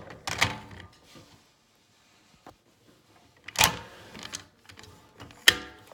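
Plastic Bison King Megazord toy pieces being handled and snapped into place: three sharp clicks, about half a second in, past the middle, and the loudest near the end, with faint handling rustle between.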